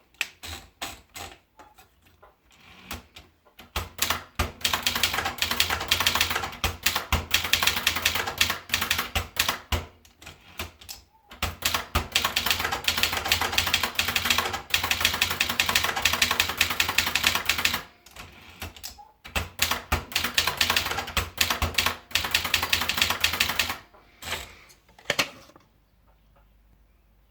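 Vendex 500T typewriter being typed on in fast, dense runs of keystrokes, with short pauses about ten and seventeen seconds in; the typing stops about twenty-five seconds in.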